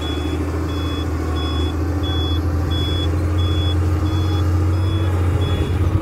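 Loaded tipper truck reversing: its reverse alarm beeps steadily, about three beeps every two seconds, over the low, steady running of its diesel engine.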